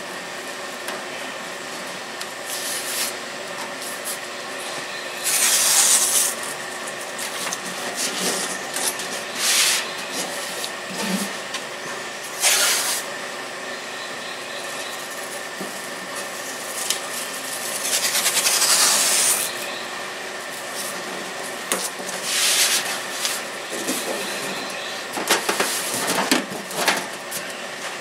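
Blue tape being pulled off the roll in irregular ripping pulls, one of them long, and pressed and rubbed down along a riding lawn tractor's hood.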